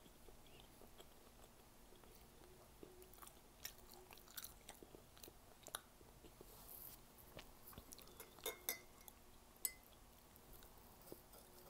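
Faint chewing of a mouthful of squid and rice, with scattered soft clicks and taps, a few sharper ones in the second half.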